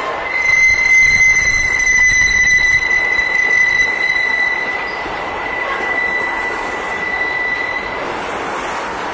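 Freight train of empty grain hopper wagons rolling through a curve, with wheel flanges squealing against the rail in one steady high tone over the rumble of the wagons. The squeal starts just after the beginning and dies away near the end. The rumble is loudest in the first half.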